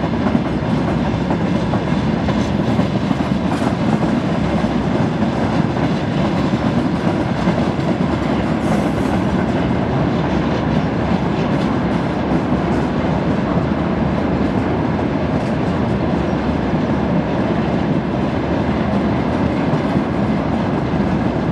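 A train moving on the rails, with a loud, steady running noise that stays even throughout.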